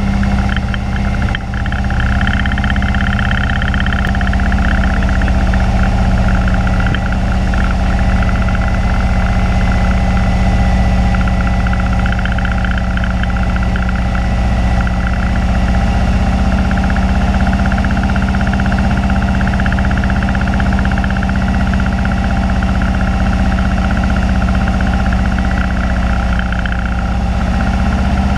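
Alon A2 Aircoupe's air-cooled four-cylinder engine and propeller running steadily in cruise, a loud even drone heard from inside the cockpit.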